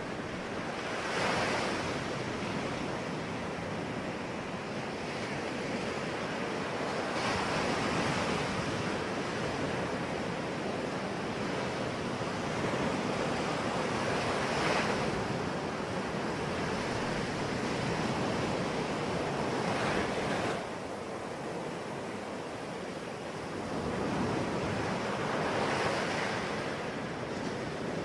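Sea waves breaking on the shore, a steady wash with a surge of surf about every six or seven seconds.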